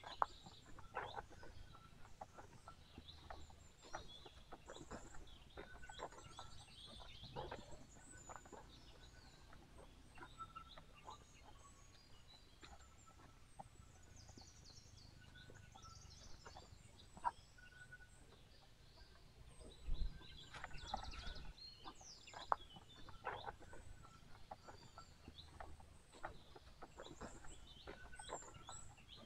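Faint bird calls and chirps throughout, over scattered light crunches of footsteps on dry bamboo leaves, with a brief low rumble about two-thirds of the way through.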